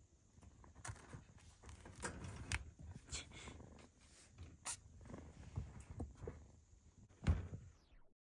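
Kittens moving about: irregular rustling and scratching with light knocks, and one louder thump near the end, after which the sound cuts off.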